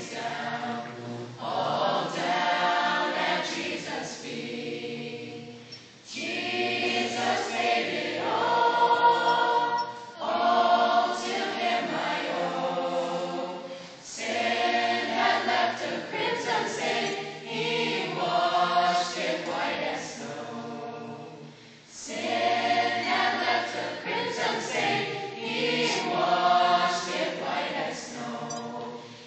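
Mixed-voice choir singing, in phrases a few seconds long with brief breaks between them.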